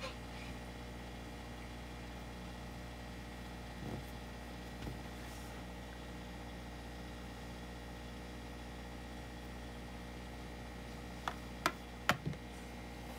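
Steady low electrical hum, with two faint soft knocks early on and a quick run of three or four sharp light clicks near the end.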